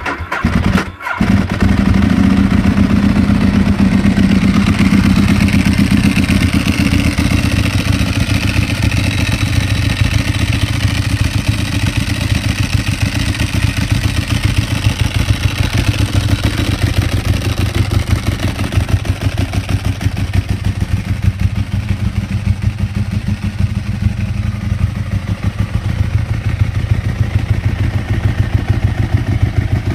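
Ducati 1098S's 90-degree L-twin engine starting about a second in and settling into a steady, loud idle with a fast, even pulsing beat.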